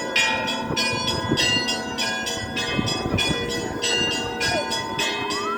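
Orthodox church bells ringing: several bells of different pitch struck in a quick, steady rhythm, each stroke ringing on into the next.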